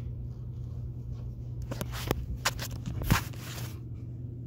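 Paper rustling and crinkling close to the microphone as it is handled, with a run of sharp clicks and scrapes from about a second and a half in, over a low steady hum.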